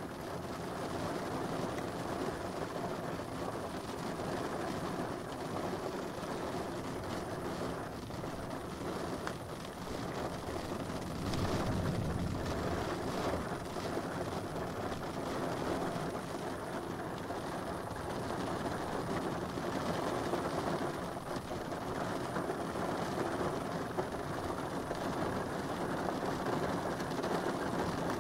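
Steady rain during a thunderstorm, heard through rain-spattered glass, with a low rumble of thunder swelling about eleven seconds in.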